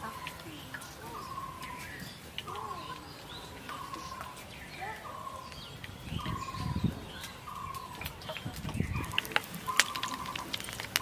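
A bird calls over and over in short, evenly spaced notes, about one a second. Two low rumbles come midway, and from about nine seconds in there is crackling as braided potato snacks go into hot frying oil.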